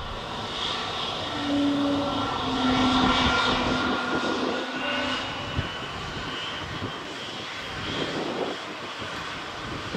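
Jet engines of an Airbus A321neo, Pratt & Whitney PW1130G geared turbofans, running with several steady whining tones over a rumble, a little louder in the first few seconds.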